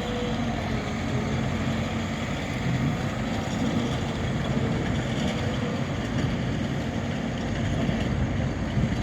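Liebherr LH 35 M Litronic timber excavator's 140 kW diesel engine running steadily.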